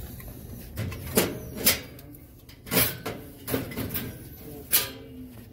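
Aluminium soda cans being loaded by hand into the steel can column of a Vendo V407 vending machine, knocking against the metal and each other: about six sharp clunks spread over a few seconds.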